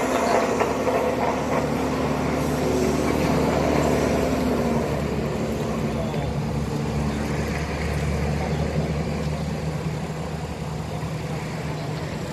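Heavy road-construction machinery engine running steadily at a low drone, its note shifting slightly a few seconds in.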